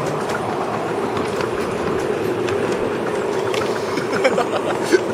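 A 7¼-inch gauge miniature steam train running along its track: a steady rumble of wheels on the rails, with scattered light clicks from the rail joints.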